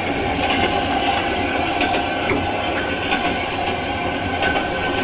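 Passenger train running, heard from inside the carriage: a steady noise of wheels and carriage with irregular small rattles and clicks.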